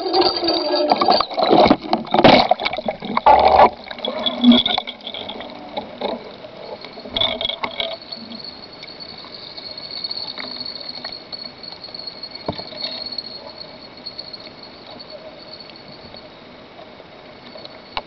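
Water splashing and sloshing around a small remote-control boat and its onboard camera, loud and choppy for the first four seconds or so. It then eases to a quieter wash with a faint steady high whine.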